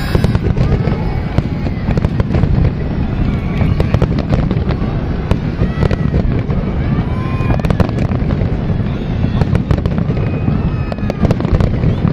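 Fireworks display: a dense, continuous barrage of aerial shell bursts and bangs, many sharp reports close together over a steady low rumble.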